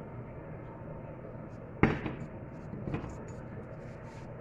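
Water pouring into a stainless steel saucepan, with a sharp knock a little under two seconds in and a lighter knock about a second later as the pot is handled.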